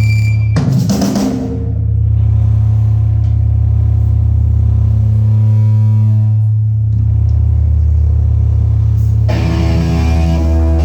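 Loud bass-heavy music: a deep, sustained bass line with a sharp drum hit about half a second in.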